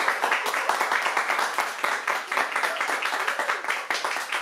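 A group of people clapping: applause from a small live studio audience.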